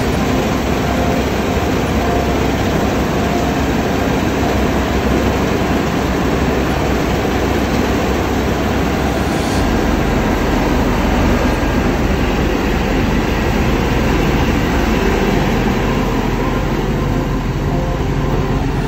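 New Holland combine harvester running under load: a steady, dense engine and machinery noise, with a shift in its low rumble about halfway through.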